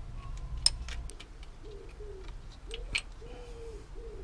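A few sharp metallic clicks as a 10mm spanner frees a bolt and the bolt is handled, the loudest about a second in and again near three seconds. From about one and a half seconds on, a pigeon coos repeatedly in the background.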